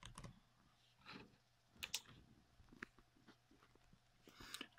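Faint, scattered clicks of laptop keys being typed and pressed, a few isolated taps spread unevenly with a small cluster near the end.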